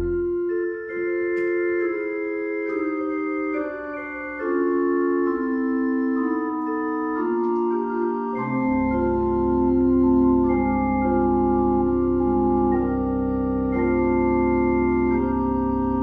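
Organ playing slow sustained chords that shift note by note. A deep bass note comes in about halfway through and holds under the chords.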